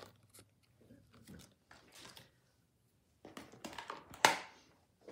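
Plastic rustling and crinkling as a sheet of clear rubber-style stamps in its plastic backing is handled and put aside, with scattered light clicks and a louder rustle about four seconds in.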